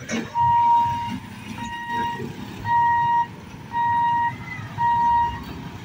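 Level-crossing warning hooter beeping at one steady pitch, five beeps about a second apart, as the electric boom barrier lifts. Underneath it, motorcycle engines idle and start to move off.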